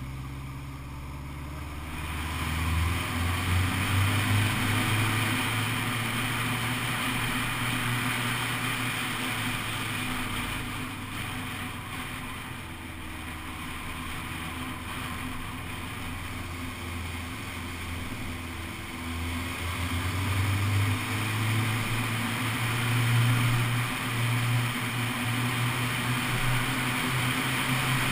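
Honda CBF600's inline-four engine running as the motorcycle climbs a winding road, pulling harder about two seconds in and again near twenty seconds, with wind noise rushing over the onboard camera.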